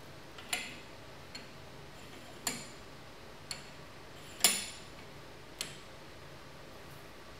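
Six light metallic clinks, each with a brief high ring, spaced irregularly about a second apart, the loudest about four and a half seconds in, over a faint steady hiss.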